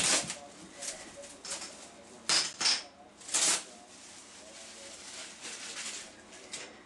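Plastic wrap crinkling and rustling in a few short bursts as it is pulled and handled: one right at the start, then two more about two and a half and three and a half seconds in.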